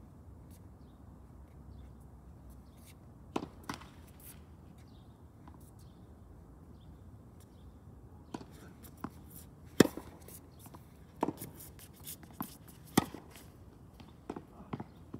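Tennis balls being struck by rackets and bouncing on a hard court: sharp pops, two in quick succession a few seconds in, then a run of them from about eight seconds on, spaced roughly a second or so apart.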